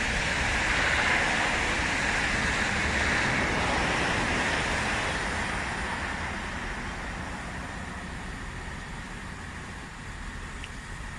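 Class 165 diesel multiple unit standing at a platform with its engines idling, making a low rumble. Over it is a broad hiss that is loudest in the first few seconds and dies away gradually.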